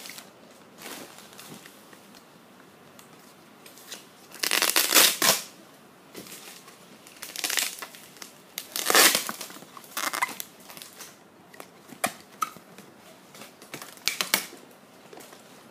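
Clear plastic film crinkling and crackling in irregular bursts as it is handled and pulled off a stack of cardboard boxes, loudest about four and a half seconds in and again about nine seconds in.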